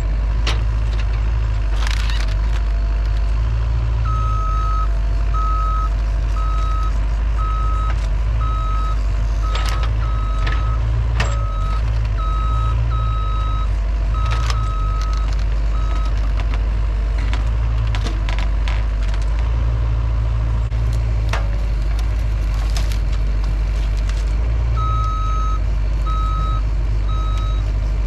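Mini excavator's diesel engine running steadily under load while its travel alarm beeps about once a second, stopping for several seconds in the middle and then starting again. Sharp cracks and snaps of juniper branches break in throughout as the tree is dragged.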